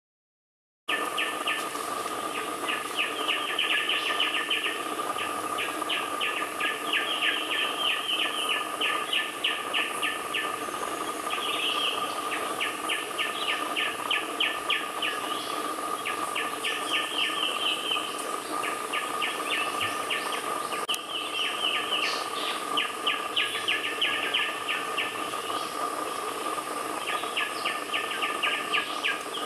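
Green magpie chicks begging, a rapid run of short chirps repeated in bursts of a second or two, over a steady high hum. The sound starts abruptly about a second in.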